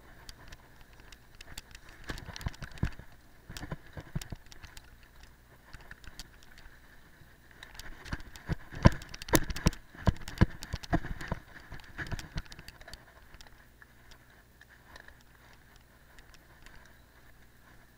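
Cyclocross bike rolling over bumpy grass and fallen leaves, recorded from the handlebar: steady tyre and drivetrain noise with bursts of rattling knocks from the bike and camera mount over bumps, loudest in a cluster about halfway through.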